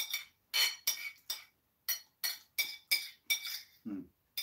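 Metal spoon clinking and scraping against a ceramic plate while food is scooped up: a dozen or so short, ringing clinks, two or three a second.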